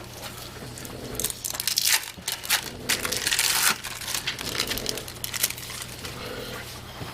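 Plastic food packaging crinkling and rustling in handling, with scattered light clicks and a longer crinkle about halfway through.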